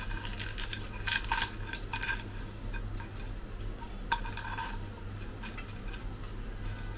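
Crisp fried fish heads being broken apart by hand on a clay plate: scattered crackles and light clicks of bone and crust against the plate, in small clusters about a second in, again around two seconds and around four seconds, over a low steady hum.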